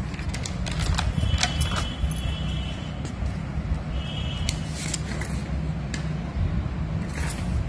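Notebook pages being turned and handled, paper crackling and clicking over a steady low hum. A short high tone sounds twice, about a second in and again about four seconds in.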